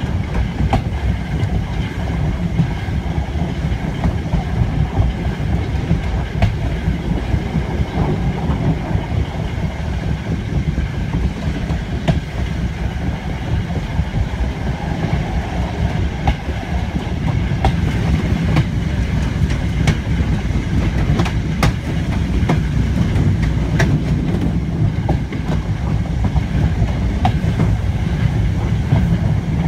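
An LMS brake van running along the track, its wheels rumbling steadily on the rails with occasional sharp clicks over the rail joints. The running grows a little louder in the second half.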